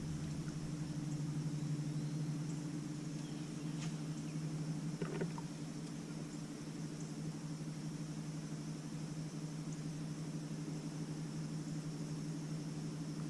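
Boat motor running steadily with an even, low hum that holds one pitch throughout, and a faint click about five seconds in.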